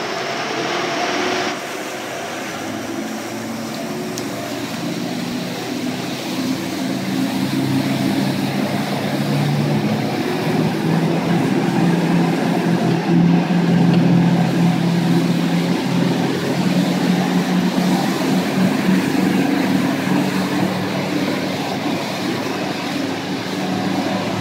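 Triple Volvo Penta IPS600 diesel engines of a Cruisers Yachts 540 working hard as the boat climbs onto plane, their note building and growing louder over the first half, over the rush of the wake water. A hiss cuts off about a second and a half in.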